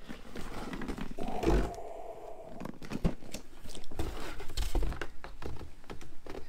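Cardboard shipping box being handled as a boxed microphone is slid out of it and the empty box is lifted: scraping, rustling and crinkling of cardboard, with a sharp knock about three seconds in.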